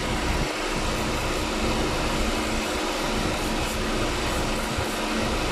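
A 2015 Hyundai Accent's engine running with its air conditioning switched on, giving a steady, even drone with a low hum.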